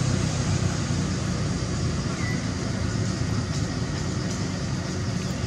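Steady low rumbling background noise with no clear events in it.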